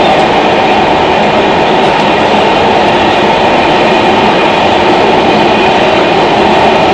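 Los Angeles Metro Red Line subway car running through the tunnel, heard from inside the passenger car: a loud, steady rumble of wheels and running gear with a faint steady whine above it.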